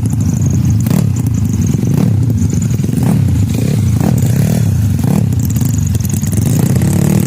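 Motorcycle engines running loudly and steadily, with sharp clacks about once a second.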